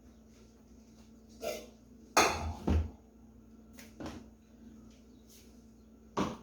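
Kitchenware being handled: a handful of separate knocks and clinks of dishes and utensils, the loudest a pair of knocks about two seconds in.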